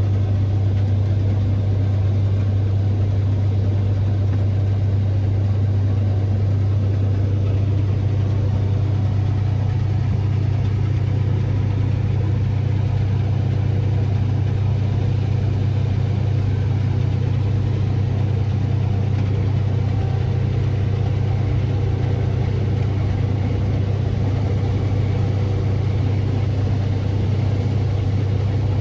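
Heavy farm machine's engine running steadily, a deep even drone that holds constant throughout.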